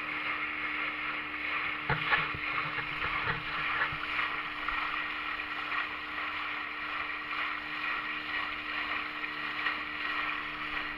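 Small motorboat running at speed on open sea: a steady engine hum under a constant rush of water and wind, with a few sharp knocks about two to four seconds in.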